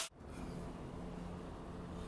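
Faint room tone with a steady low hum, just after a loud angle-grinder noise cuts off abruptly at the very start.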